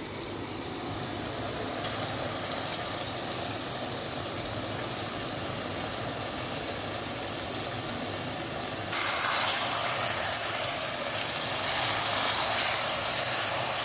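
Chicken pieces frying in onion-and-spice masala in a pressure cooker, a steady sizzle that turns suddenly louder and brighter about nine seconds in.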